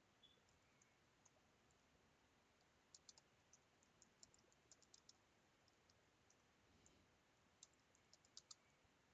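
Faint computer keyboard typing: scattered key clicks over near silence, busiest from about three to five seconds in and again near the end.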